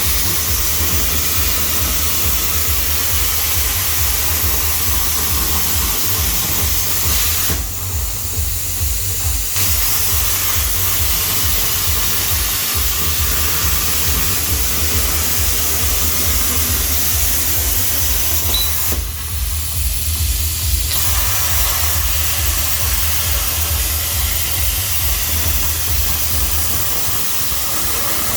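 DIY CNC plasma cutter's torch hissing steadily over a low electrical hum as it cuts. The hiss drops away twice for about two seconds each, around 8 s and 19 s in. The cut is failing because the machine's power supply is too weak.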